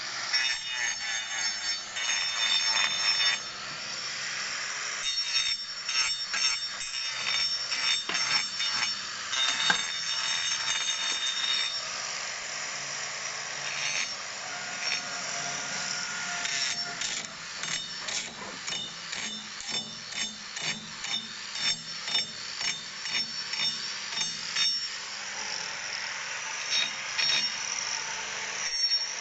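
Electric angle grinder fitted with a hoof-trimming disc, its motor running with a steady high whine while the disc scrapes against a cow's hoof in many short strokes.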